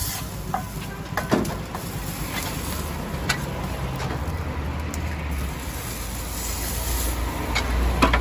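Background noise of a busy street food stall: a steady low rumble with a few sharp clinks and knocks scattered through it, the loudest near the end.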